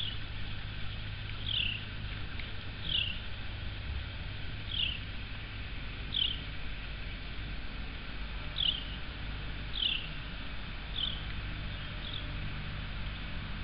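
Short, high chirps, each sliding quickly downward, repeat about every second or two over a steady low hum.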